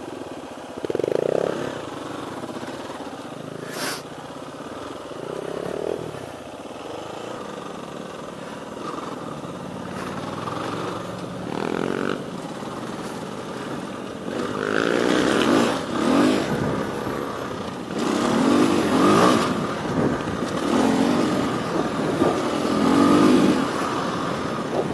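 Husqvarna FE350 dirt bike's four-stroke single-cylinder engine heard from the rider's seat, revving up and easing off again and again as it rides a dirt trail, getting louder with harder throttle in the second half. A single sharp click about four seconds in.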